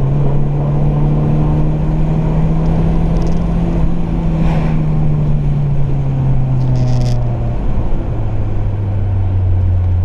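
BMW E36 318i four-cylinder engine through a sport exhaust, running under way with a steady drone whose pitch sinks slowly. About eight seconds in it drops to a lower note, as with an upshift.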